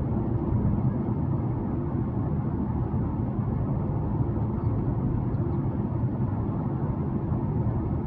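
Steady low rumble of a car driving along, engine and tyre noise, with no change in pace.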